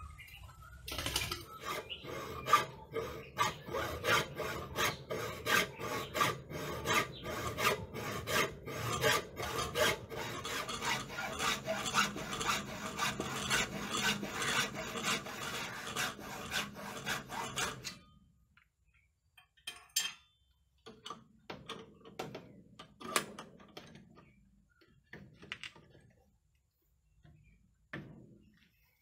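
A hacksaw cutting into a clamped wooden board in quick, even back-and-forth strokes, making a row of relief cuts down to a marked outline. The sawing stops about two thirds of the way through, followed by a few scattered knocks and taps as the board is handled.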